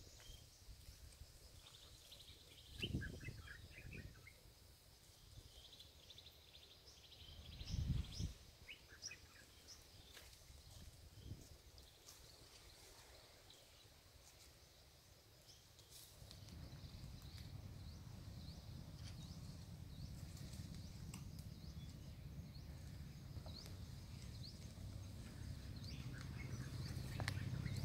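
Quiet outdoor ambience with a few faint, scattered bird chirps and two low bumps in the first third. About halfway in, a steady low rumble comes in and slowly grows louder.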